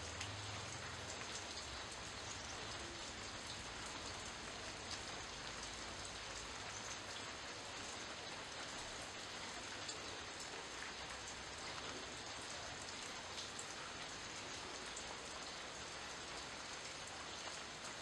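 Steady rain falling on leaves and foliage, with individual drops ticking close by.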